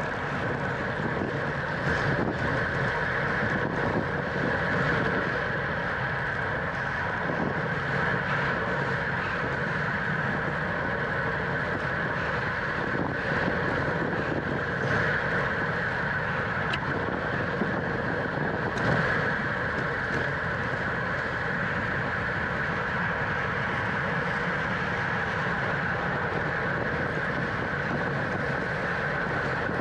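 Steady wind rushing over the microphone of a camera on a bicycle ridden at race speed, with the rumble of the ride underneath and a few faint clicks.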